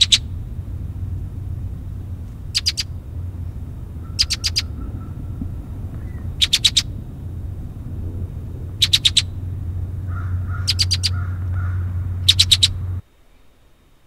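Red-winged blackbird giving its chink call notes: seven short, sharp chinks spaced about two seconds apart, over a steady low rumble in the field recording. The recording cuts off about a second before the end.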